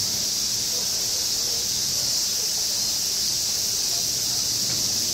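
Steady, unbroken droning of a summer cicada chorus, high-pitched and even, with a faint murmur of distant voices underneath.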